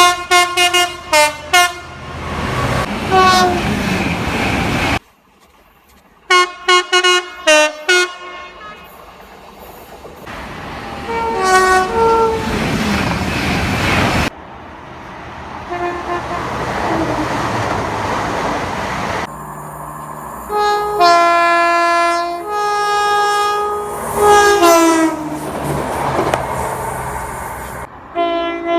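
Train horns sounding in a series of cut-together clips. There are rapid strings of short toots, single blasts, and later several longer blasts that alternate between two pitches. Under them runs the noise of passing trains.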